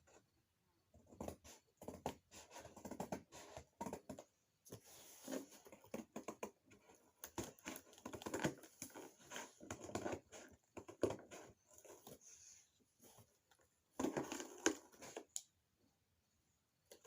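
Gift packaging being handled and opened: irregular rustling, crinkling and tearing with scattered small clicks, coming in bursts with short pauses.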